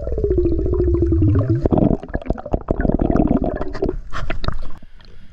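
Air bubbling and gurgling underwater close to the microphone, in rapid pulses with a pitch that falls over the first couple of seconds. It dies away about five seconds in.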